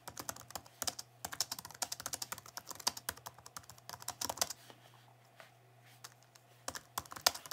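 Computer-keyboard typing sound effect: rapid, irregular key clicks that pause for about two seconds in the middle and resume briefly near the end, over a faint low hum.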